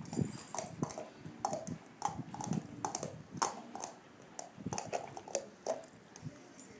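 Golden retriever mouthing and gnawing a Sphero robot ball, its teeth clicking irregularly on the hard plastic shell.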